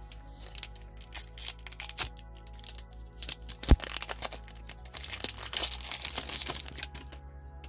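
Foil trading-card booster pack being torn open and its wrapper crinkled by hand, a run of crackles with one sharp crack about halfway through as the loudest moment. Soft background music with a steady beat plays underneath.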